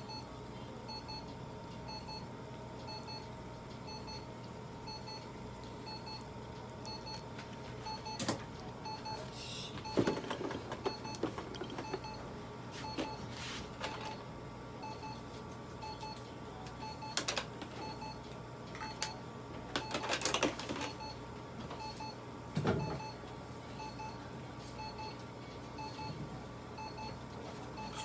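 An electronic device beeping softly at a steady repeating pace over a constant hum, with a few short knocks and rustles of handling, the loudest about a third of the way in and again about two thirds in.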